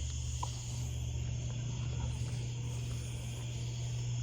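Crickets trilling steadily in a continuous chorus over a constant low hum.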